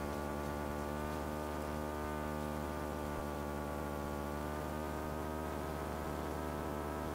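Light aircraft's piston engine and propeller droning steadily, heard in the cockpit, the pitch drifting slightly as the revs shift.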